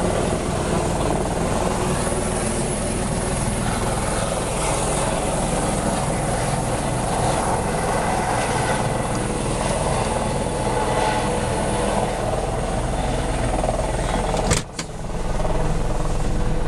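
Tour helicopter running steadily on the ground, a constant engine and rotor noise, with a brief sudden dropout near the end.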